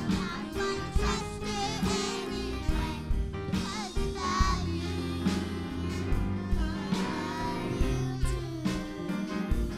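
Children singing a gospel song over instrumental accompaniment with a steady bass line.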